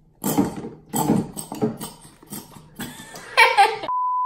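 A string of short, rough, noisy bursts ending in a brief, high, wavering cry, then a steady 1 kHz test-tone beep that starts near the end, the tone that goes with a colour-bar test screen.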